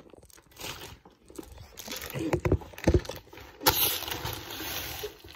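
Rustling and crinkling of a plastic carrier bag close to the microphone, with a few sharp knocks near the middle.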